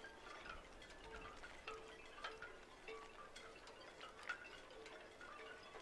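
Faint chimes ringing irregularly, short tones at several different pitches.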